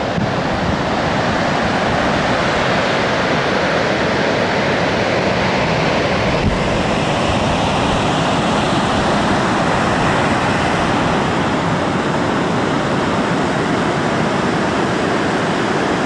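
Pacific Ocean surf breaking and washing up the beach, a steady rushing, with wind rumbling on the microphone.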